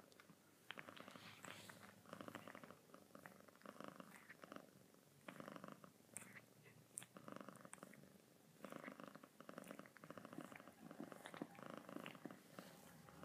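Domestic cat purring softly in pulses, in bursts of about a second breath by breath, with a few faint tongue clicks as one cat licks the other's fur.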